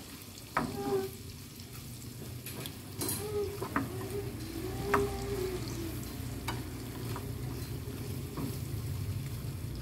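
Pork belly sizzling in a small frying pan as it is stir-fried with chopsticks, the chopsticks clicking and scraping against the pan now and then. The sauce is cooked down thick, near the end of frying the pork belly until its edges are browned.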